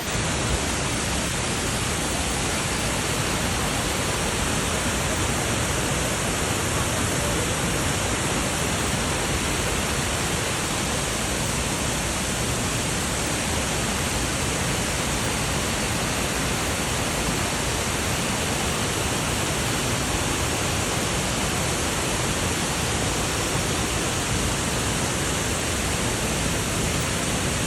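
Waterfall: falling water rushing steadily and evenly, without a break.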